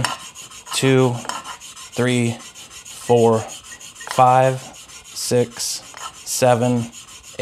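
Cobalt block plane iron in a honing guide stroked back and forth on WD-40-lubricated abrasive lapping film over glass (Scary Sharp sharpening), honing a micro bevel. Each stroke gives a loud rubbing squeal that rises in pitch, about once a second.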